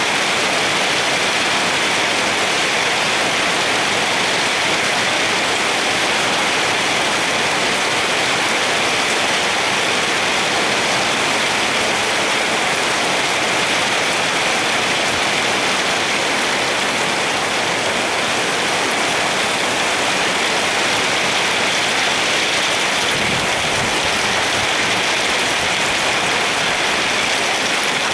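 Rain falling steadily, a dense, even hiss with no let-up.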